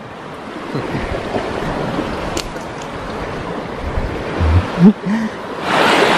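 Sea surf washing against a rocky shore with wind on the microphone. A few short thumps and a brief low-pitched sound come about five seconds in, and the surf and wind get louder near the end.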